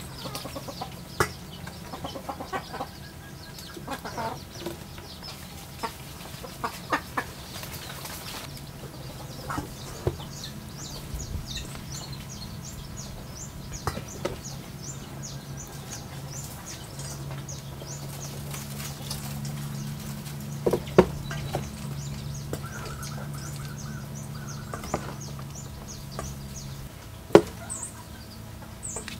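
Metal spoon clinking and scraping against a stainless steel bowl while a raw shrimp salad is tossed, in sharp irregular knocks, the loudest two near the end. Chickens cluck and high, repeated chirps come in the background.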